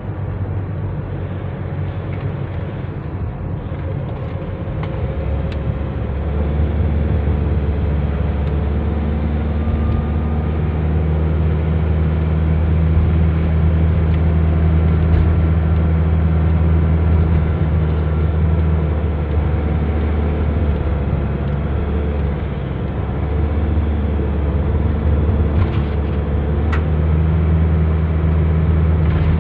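Nissan NV350 van driving on the road at speed: a steady low drone of engine and road noise. It grows louder about five seconds in and dips briefly about three-quarters of the way through.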